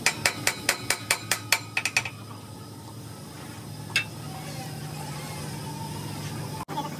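A hammer striking a steel bar held against a large machine wheel's hub, with quick metallic blows that ring. About ten come in the first two seconds and one more about four seconds in, over a low steady hum.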